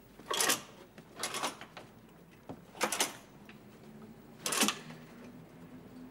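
Curtains being drawn open along their rail, in four short pulls of about a third of a second each, spaced a second or more apart.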